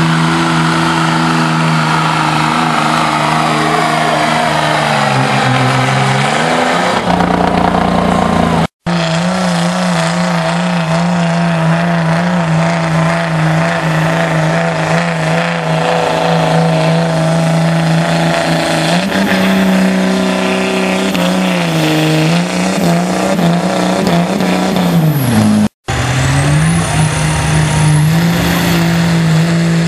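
Diesel truck engines running hard under load in a truck pull: a loud, steady high-revving drone that wavers and dips in pitch. The sound cuts out abruptly twice between runs, and a thin high whistle rises near the end.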